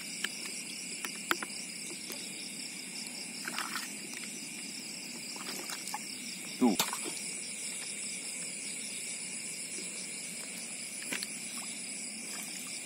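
Steady night chorus of crickets and other insects, made of high, even trilling. It is broken by a few short clicks and one brief louder sound about seven seconds in.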